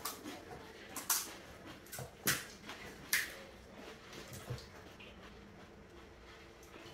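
Quiet eating sounds as crisp pani puri shells are bitten: a few short, sharp crunches, three of them clear within the first three seconds.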